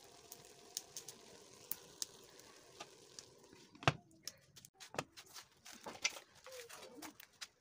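Rice and chickpeas cooking in an aluminium pressure-cooker pot, the last water crackling and popping as it cooks off, with scattered sharp pops over a low hiss. One loud sharp click comes about four seconds in.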